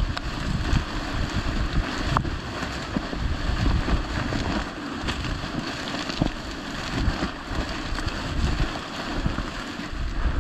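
Wind buffeting the microphone in uneven gusts while someone walks through dry grass and cattails, the stalks rustling and brushing against the camera.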